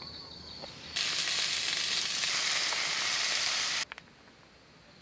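Food sizzling in a hot pan for about three seconds, starting and stopping abruptly.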